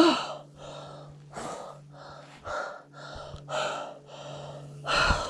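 A person breathing hard and fast, heart rate up from squeezing through a tight gap under a rock: a short voiced gasp at the start, then quick noisy breaths a little under two a second.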